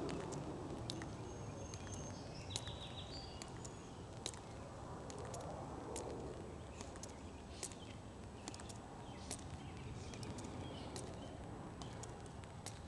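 Footsteps of the tomb sentinel's metal-plated shoes on the stone plaza as he marches: a sharp click about every second and a half, with softer steps between. A few faint bird chirps come in the first few seconds.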